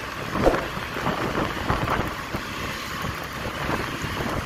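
Vehicle road noise from following a bus closely, with wind buffeting the microphone: a steady rushing noise with irregular low thumps, one louder thump about half a second in.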